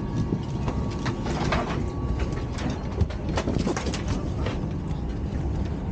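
Airliner cabin noise: a steady low hum of the cabin air, with rustling and light knocks as a bag is handled at an open overhead bin, and one sharper knock about three seconds in.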